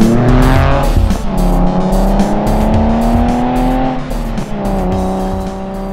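Car engine accelerating through the gears: its note climbs, drops at a shift about a second in, climbs again, and drops at another shift about four seconds in. Music with a steady drum beat plays over it.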